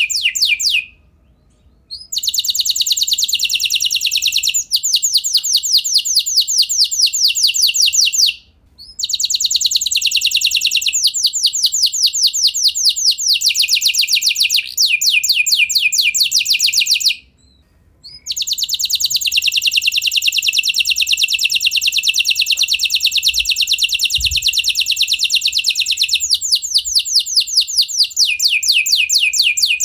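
F1 canary singing in long, rapid trills of repeated high notes, broken by three short pauses of a second or less.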